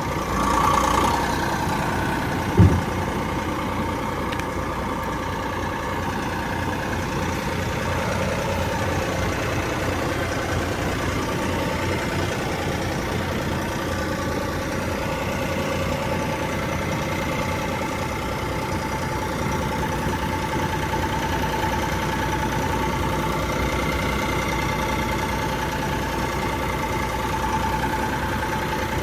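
Vermeer SC48TX stump grinder's engine running steadily, with one sharp knock about two and a half seconds in.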